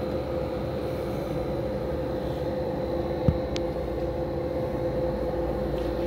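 Strong dust-storm wind of around 50 to 60 miles an hour, a steady low rumble with a constant hum under it, and a single sharp thump about three seconds in.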